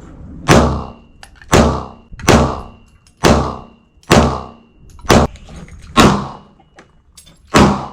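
Eight gunshots fired one after another at roughly one a second, each trailing off briefly.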